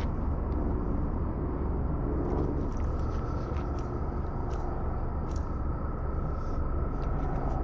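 Steady low mechanical rumble with a thin, constant high whine over it, like a running motor or engine, with a few faint clicks.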